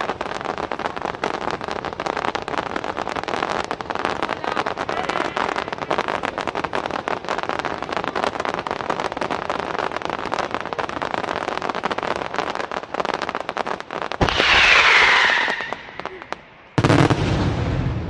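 Fireworks finale: dense, rapid crackling and popping of many shells bursting at once. Near the end come two louder bursts.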